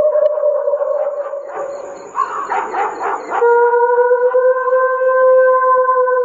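Dog-like howling: a long howl held on one pitch, a ragged yelping stretch about two seconds in, then a second long howl held steady to the end. Faint regular high chirps sound behind it.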